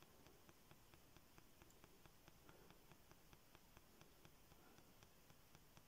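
Near silence: faint room tone with a faint, even ticking, about five ticks a second.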